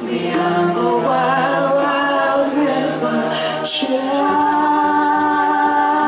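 Several voices singing together in harmony on the last refrain of the song. About four seconds in they settle into one long held chord.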